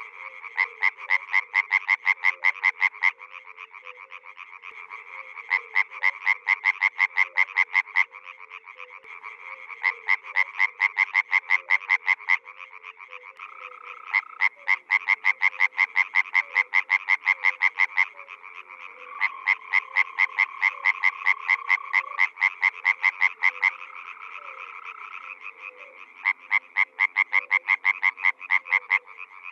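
Frogs calling. One loud frog gives bouts of rapid pulsed croaks, about five or six a second for a few seconds at a time, with short pauses between, over a continuous chorus of other frogs.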